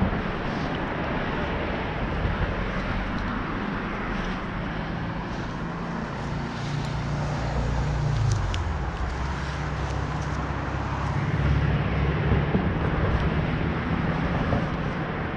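An engine running at low speed, dropping in pitch about eight seconds in, over a steady rushing noise.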